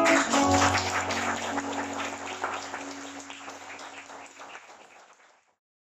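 Audience applause over the last acoustic guitar chord of a song ringing out. Both fade away steadily to silence about five seconds in.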